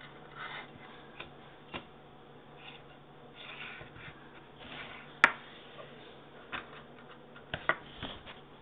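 Metal Slinky clinking and rattling as a kitten bats and pushes it across a hard surface: scattered light taps and clicks, with one sharp clink about five seconds in and two more in quick succession near the end.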